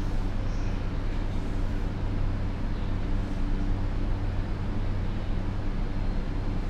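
Inside a JR East E235 series commuter car standing at a station: a steady low hum of the train's onboard equipment under even background noise.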